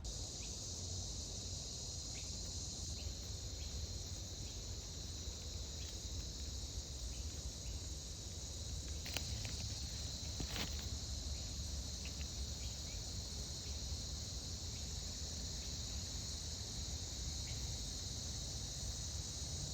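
A steady, unbroken high-pitched chorus of insects, such as crickets or cicadas, over a low rumble, with two faint clicks about nine and ten and a half seconds in.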